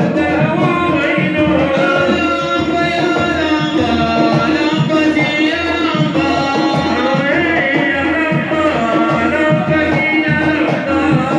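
Loud Arabic folk-style music: a man singing through a microphone over a regular hand-drum beat that does not let up.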